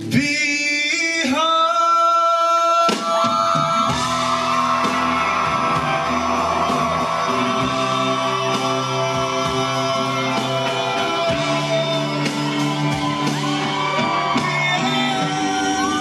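Live rock band playing, with a lead singer and a backing vocal over electric guitar, bass and drums. It opens with a long held sung note over sparse accompaniment, and the full band comes in about three seconds in.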